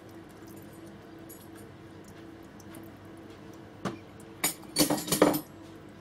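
A small bird splashing in a bird bath: one short splash about four seconds in, then a quick run of splashes lasting about a second near the end.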